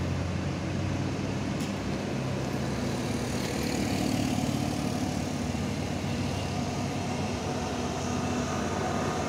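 Heavy truck engines running steadily as the trucks climb towards the roadside: a continuous engine hum with road noise.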